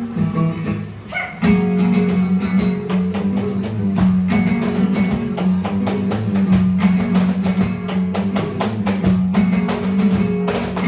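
Live acoustic guitar strummed in a dense, driving rhythm, with a cajón box drum beating along. The music stops suddenly right at the end.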